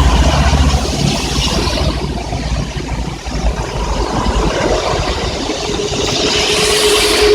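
Traffic passing on a rain-soaked highway, with tyres hissing through the wet road and heavy rain falling. A vehicle's low rumble fades in the first second or two, and another vehicle approaches near the end, its tyre spray building up.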